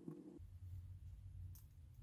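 Near silence: a faint steady low room hum with one faint click about one and a half seconds in.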